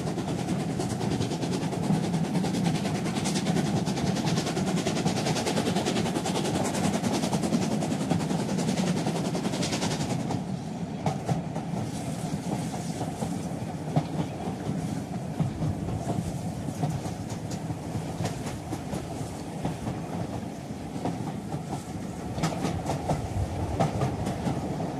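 Steady low rumble with fast, dense rattling clicks, like a train running on rails. It eases a little about ten seconds in and picks up again near the end.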